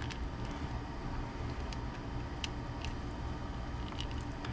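A few faint, scattered clicks of small plastic RC differential and gearbox parts being handled and fitted back together, over a steady low hum.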